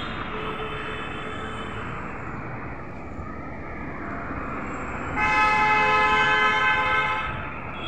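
A vehicle horn sounds loudly for about two seconds in one long blast of several tones at once, starting about five seconds in, over the steady noise of city street traffic.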